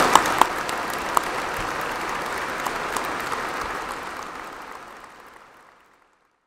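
A large audience applauding, many hands clapping at once in a big gymnasium hall; the clapping fades out about five to six seconds in.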